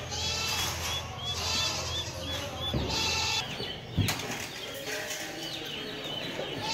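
Caged chickens flapping and rustling in wire cages, in short bursts, with small high chirps repeating about twice a second through the first half. A single sharp thump comes about four seconds in.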